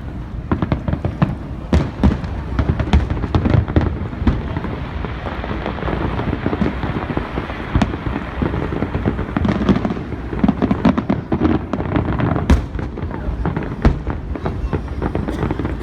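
Aerial fireworks display: many sharp bangs and crackles in quick succession over a steady low rumble, with one louder crack about twelve seconds in.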